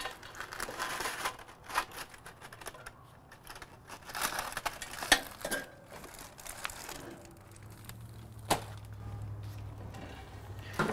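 Double-wrapped aluminium foil crinkling in short bursts as gloved hands grip and lift a foil-wrapped pork shoulder off a grill grate, with a few sharp knocks in between.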